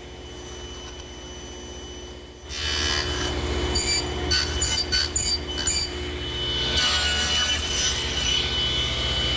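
Table saw running, then cutting wood in several short passes, nibbling away a tenon on a door rail. The saw gets louder about two and a half seconds in, the cuts come in quick bursts over the next few seconds, and then the saw runs on steadily.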